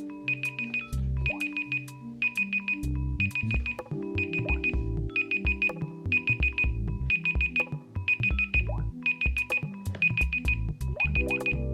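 Samsung phone alarm tone playing: an electronic melody with bass and chords, topped by a short, high trilling bleep that repeats about once a second. The chord pattern underneath changes about four seconds in.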